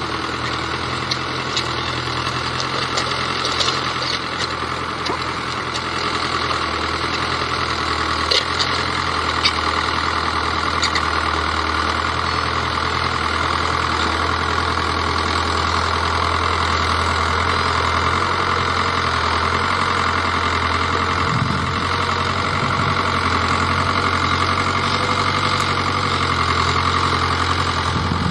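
New Holland 80-66S tractor's diesel engine running steadily under load as it pulls a disc plough through the soil. A few short clicks and knocks come through in the first ten seconds or so.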